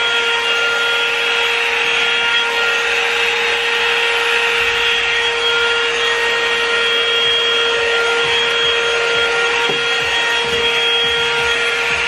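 Revlon One-Step hair dryer and styler, a paddle-brush blow dryer, running: a loud, steady motor whine over rushing air.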